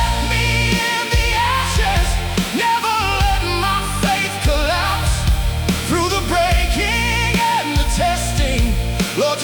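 Music: a full-band Christian worship song, with a wavering melodic line over sustained low notes.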